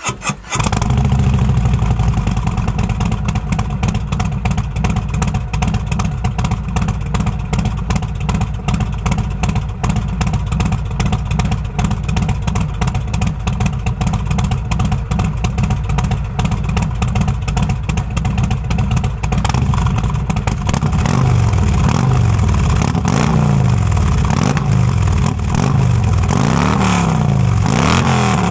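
Harley-Davidson Milwaukee-Eight V-twin with RCX 4-inch slip-on mufflers and Tormentor headers without a catalytic converter, heard at the tailpipes: it fires up and settles into a loud, pulsing idle, then from about two-thirds of the way through it is revved in a run of quick blips that rise and fall back to idle.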